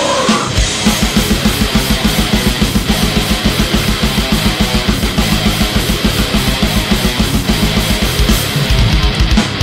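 Loud heavy rock music with electric guitar over a fast, steady drum beat.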